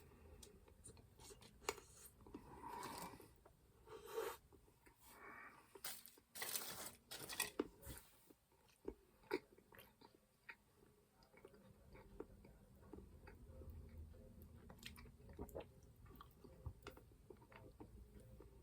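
Quiet close-up chewing and crunching of a chocolate lollipop, with scattered small mouth clicks; the loudest bites come about six to eight seconds in.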